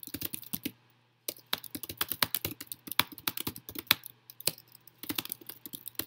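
Typing on a computer keyboard: a fast, uneven run of keystrokes, broken by a short pause about a second in.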